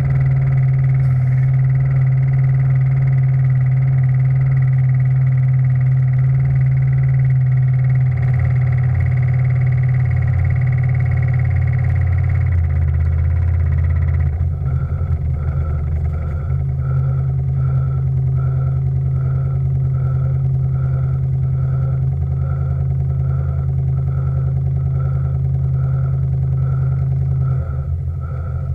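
The steam launch's steam engine and gas-fired boiler run with a steady low hum and several steady tones above it. About halfway through the sound shifts, and a soft regular pulse of about one and a half beats a second sets in.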